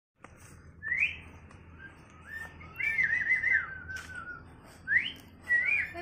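A series of clear whistled notes: a quick rising sweep, then a warbling phrase that trails off into a falling note, then another rising sweep and a short rise-and-fall near the end.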